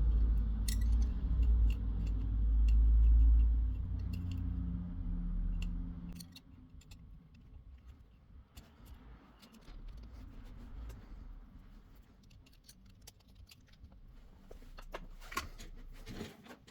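Small metallic clicks and taps of hand tools working on a thermostat's circuit board while components are being removed, over a low rumble that fills the first six seconds.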